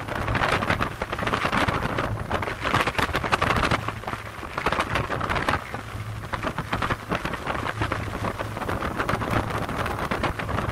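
Wind gusting across the microphone on the open deck of a Staten Island Ferry under way, over rushing water and a steady low hum from the ferry's engines.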